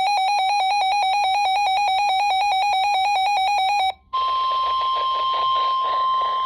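RadioShack 12-254 weather radio's built-in alarm beeping rapidly with a harsh, high, pulsing tone. About four seconds in, the beeping cuts off and the NOAA Weather Radio warning alert tone comes through the radio's speaker as one steady tone over static, signalling a warning broadcast.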